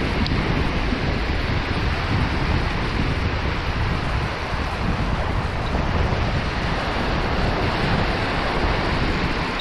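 Small surf breaking and washing up over shallow sand, heard as a steady rush, with wind buffeting the microphone.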